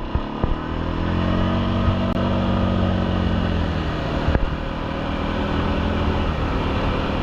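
ATV (four-wheeler) engine running under way, its pitch rising over the first two seconds or so as it speeds up, then holding steady, with a few knocks and rattles.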